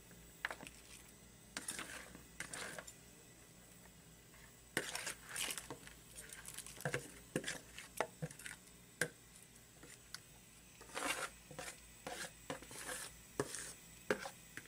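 A metal spoon scrapes and knocks against a plastic bowl as marinated crab pieces are scooped out into a pot of split-pea broth. The clatters and scrapes come irregularly, in several clusters.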